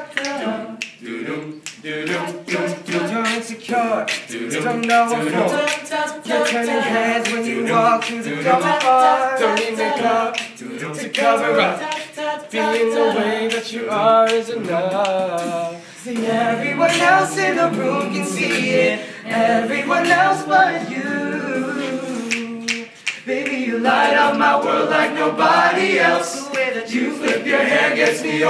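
Male a cappella group singing in close harmony, with finger snaps keeping the beat.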